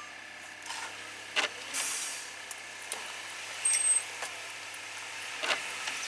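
Steady background noise of city street traffic, with a few short knocks and rustles and a brief hiss about two seconds in.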